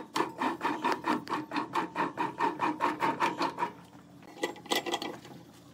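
Long hollowing tool scraping inside the neck of a spinning wooden vase on a lathe, in a rhythmic rasp of about five strokes a second that fades out after about three and a half seconds, followed by a few light clicks.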